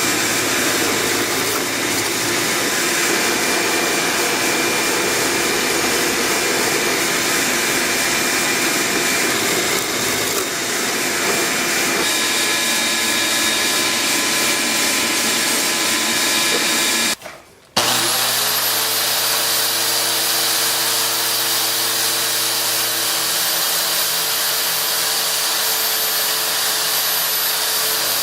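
Electric power tool working wood, its motor running steadily. It cuts out briefly about 17 seconds in, then spins back up to a steady whine.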